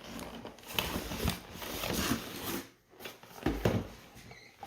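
Packaging rustling and scraping as a recessed LED light trim is lifted out of its box, with a few soft knocks.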